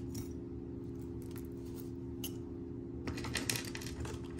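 Small clicks and clinks of costume jewelry being handled and set down on a cloth-covered table, with a quick run of clicks about three seconds in. A steady low hum runs underneath.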